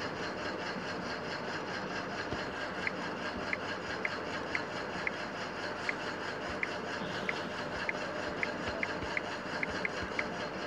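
Short, soft clicks of typing on a smartphone's on-screen keyboard, irregular, about one or two a second, starting about three seconds in, over a steady background hiss.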